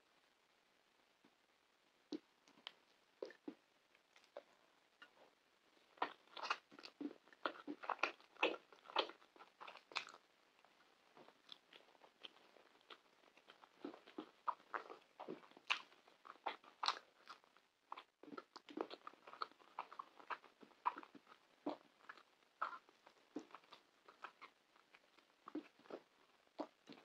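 Close-miked eating with the fingers: irregular wet clicks and crackles of chewing and of pan kebab and rice being pulled apart, sparse at first and much busier from about six seconds in.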